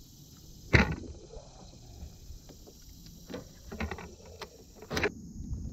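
Sharp knocks on a fishing kayak, a loud one about a second in and another near the end, with a few lighter clicks between, over a steady wash of wind and water.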